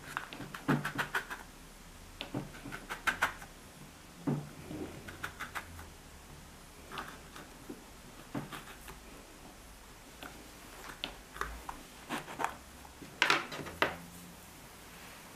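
Plastic cookie cutter pressed through soft dough onto a wooden tabletop: irregular clusters of short taps, clicks and scrapes as each shape is cut and the cutter is lifted, the loudest group near the end.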